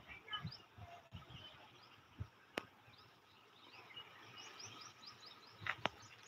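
Small birds chirping faintly, with a quick series of short rising chirps in the second half. A few sharp clicks stand out over the chirping.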